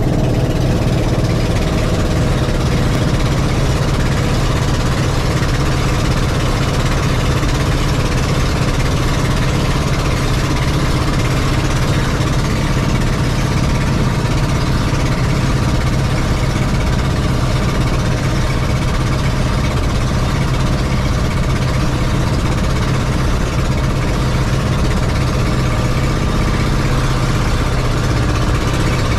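Engine of a motorized outrigger boat (bangka) running steadily under way, a loud, unbroken drone.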